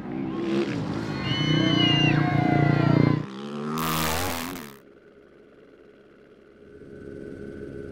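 Rally motorcycle going past a crowd of spectators, with the crowd's shouts and cheers over the engine. A short loud rush about four seconds in, then a quieter, lower engine sound near the end.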